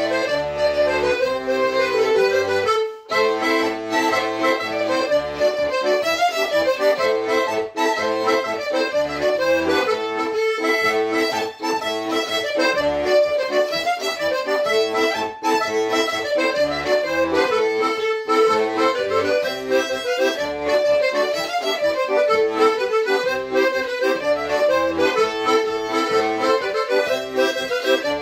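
Organetto (Italian diatonic button accordion) and violin playing a dance tune together, with a brief break in the sound about three seconds in.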